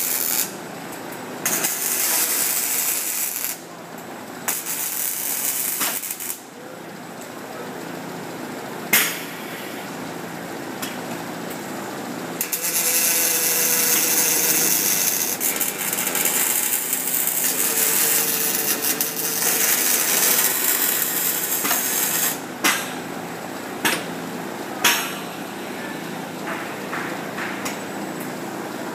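Two ABB IRB 1600 robots MIG welding: the crackling hiss of the welding arcs comes in several runs that start and stop abruptly, the longest lasting about ten seconds from about twelve seconds in. In the quieter gaps between the runs there are a few sharp clicks, several of them near the end.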